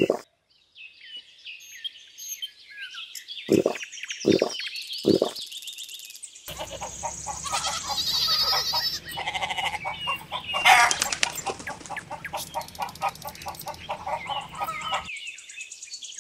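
Farmyard ambience of birds chirping, with three short low calls a few seconds in. From about six seconds to fifteen seconds there is a busier stretch of rapid, repeated bird calls over a low steady background.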